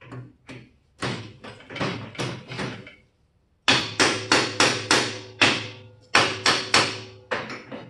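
Hammer blows on steel parts of a tube-frame buggy's front end, about three a second: a run of about seven, a short pause, then a louder run of about a dozen with a ringing tone carrying between the blows.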